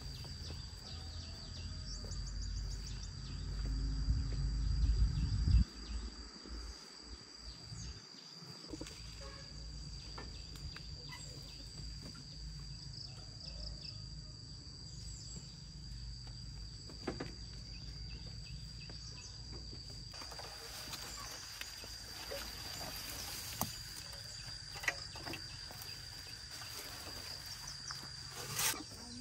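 Steady high insect drone, with a low rumble for the first five or six seconds that cuts off suddenly, and occasional light clicks and rustles.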